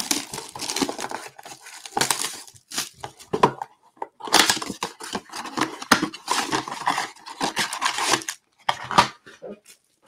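Cardboard trading-card blaster box being torn open and its card packs pulled out and stacked: a run of tearing, rustling and crinkling that stops about nine seconds in.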